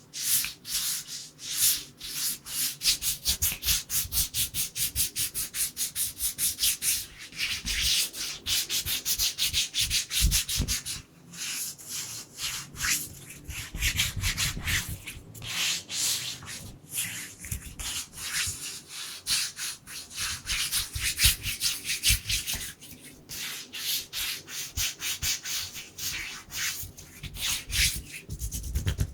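Dry bare hands rubbing and brushing together close to the microphone in quick, rhythmic strokes of hiss, several a second, with a brief pause partway through.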